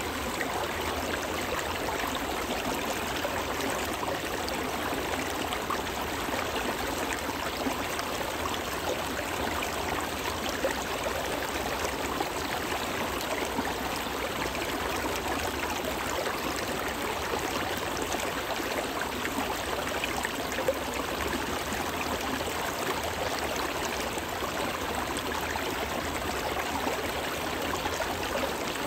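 Small, shallow stream flowing over rocks, a steady, even rush of water.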